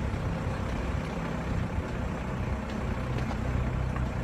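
Diesel 4x4 engine running at low speed over a rocky dirt track, heard from inside the cabin as a steady low hum, with a few faint knocks from the rough ground.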